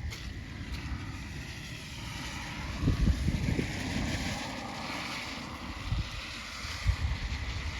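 Storm wind gusting and buffeting the microphone in irregular surges over a steady hiss of rain.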